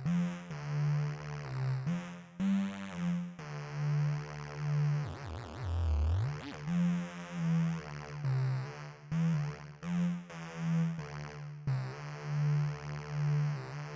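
Charlatan software synthesizer playing a low, pulsing sequence of short notes. About five seconds in, the pitch swoops down and back up.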